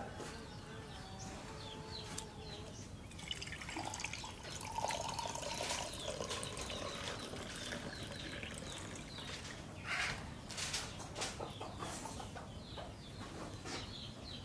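Birds chirping in the background, with a few short clicks and rustles about ten seconds in.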